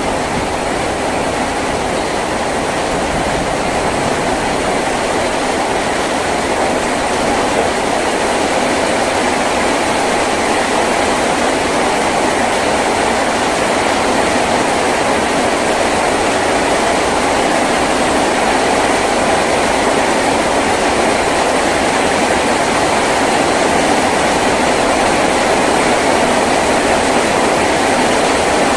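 Heavy rain falling on a tin roof: a dense, steady hiss that grows a little louder over the first few seconds.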